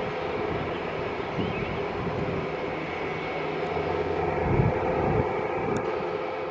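Airbus A400M's four turboprop engines running at a steady, unchanging pitch.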